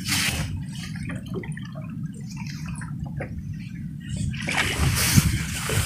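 Small water sounds, light splashing and lapping against the boat, with scattered soft clicks and a louder rush of noise near the end.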